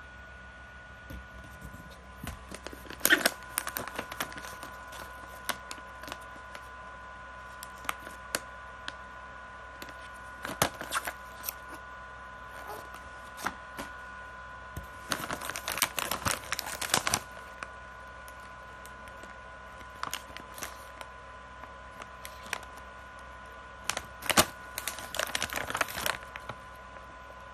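Plastic snack bags crinkling and crackling as they are handled and lifted, in several short bursts with quiet gaps between, over a faint steady high-pitched tone.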